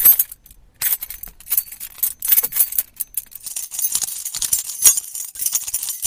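A bunch of keys jangling as it is shaken: a rapid, high-pitched run of metallic clinks, with a short break about half a second in.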